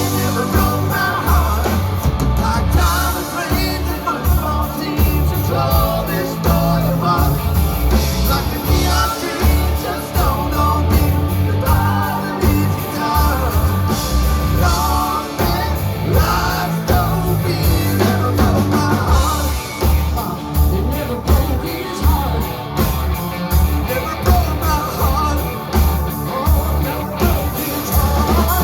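Live rock band playing a song: an instrumental stretch with a lead line over bass and drums, loud and continuous.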